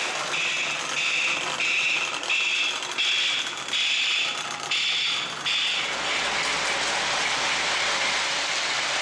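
A model train bell ringing in an even run of about eight strokes, roughly one and a half a second, stopping about five and a half seconds in, over the steady rolling rumble of O gauge trains running on the track.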